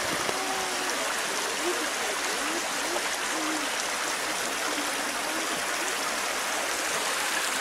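Steady, even rush of flowing water, with faint indistinct voices in the background.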